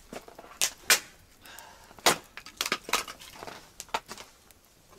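Irregular sharp woody cracks and light clicks at a campfire, about a dozen, with the loudest two near the start and about two seconds in.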